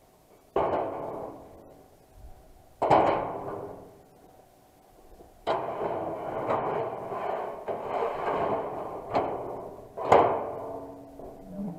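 Steel plate and a steel bar being handled: about five loud metal clangs, each ringing on after the hit. Between about five and ten seconds in there is a continuous rattling rumble, as of the large thin sheet flexing and shaking.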